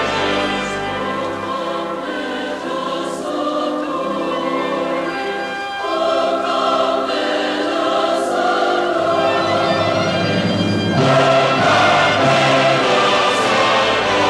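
Choral music: a choir singing sustained notes over orchestral accompaniment, swelling louder about eleven seconds in.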